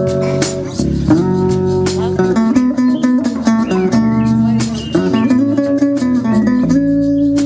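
Live band's instrumental break: guitar picking a melodic lead, with some notes sliding in pitch, over light percussion hits.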